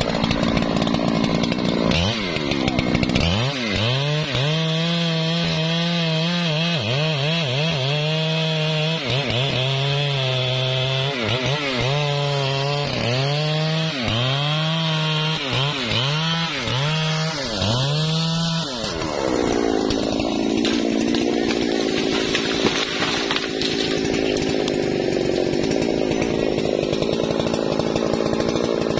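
Husqvarna 3120 XP two-stroke chainsaw cutting through a rain tree trunk under load, its engine pitch dipping and recovering over and over. About two-thirds of the way in, the wavering tone gives way to a steadier, noisier run.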